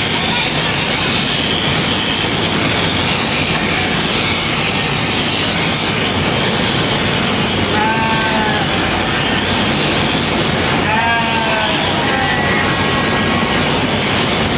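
Electric sheep-shearing handpiece running with a steady buzz as it cuts through fleece, with a sheep bleating briefly twice, about 8 and 11 seconds in.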